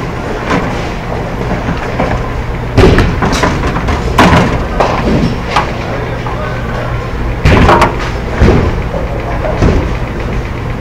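Bowling alley noise: a steady low rumble of balls rolling on the lanes, broken by about four loud crashes and several smaller knocks of balls and pins. Voices chatter in the background.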